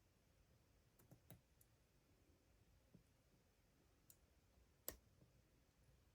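Faint, scattered metallic clicks of a short hook pick and top-of-keyway tension tool working the pins of a padlock. There are about half a dozen small ticks, the sharpest about five seconds in.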